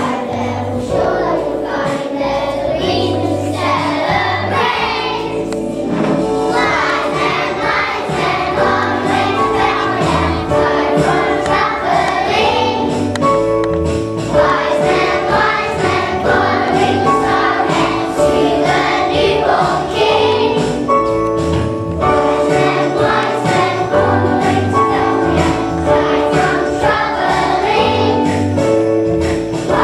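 A group of young children singing a song together with instrumental accompaniment.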